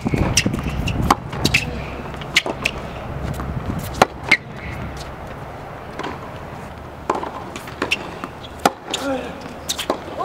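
Tennis rally on a hard court: sharp pops of racquets striking the ball and ball bounces, a few seconds apart, with short squeaks and scuffs of court shoes.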